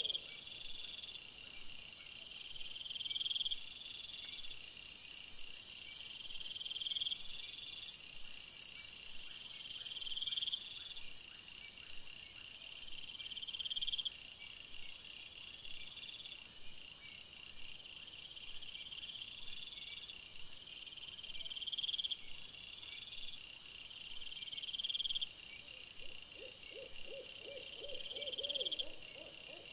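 Night-time insect chorus: crickets keep up a steady high-pitched trill, with a short rising high chirp repeating about every two seconds and a faint low pulsed call near the end.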